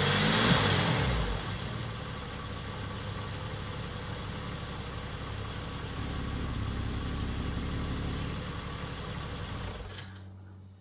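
Porsche 996 Carrera 4S's 3.6-litre flat-six running through a DesignTek Valvetronic sports exhaust: the revs fall back from a blip in the first second or so, then it settles to an idle, a little louder for a couple of seconds partway through, and the sound cuts off near the end.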